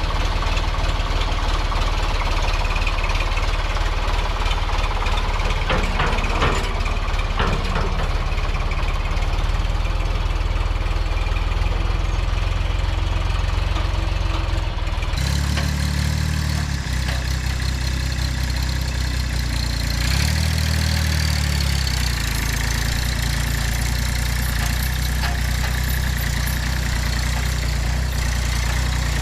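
An engine running steadily at idle, with a few short knocks around a quarter of the way in. After an abrupt change about halfway, it revs up briefly twice and settles back.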